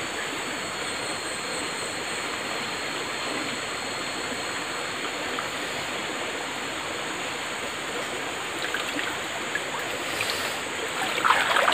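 Small forest river running steadily, an even rush of flowing water, with a few sharper, louder sounds near the end.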